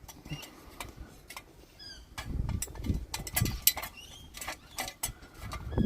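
Scattered sharp metal clicks and clinks with bursts of low rumbling handling noise, as a steel diff guard plate and its bolts are worked into place under the vehicle.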